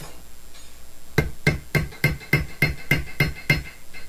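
Small hammer peening copper rivets by hand: about nine quick, even taps, roughly three a second, each with a short metallic ring, starting about a second in.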